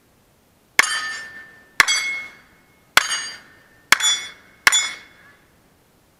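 Five revolver shots fired in quick succession, about a second apart, each followed by the ringing of a struck steel target plate.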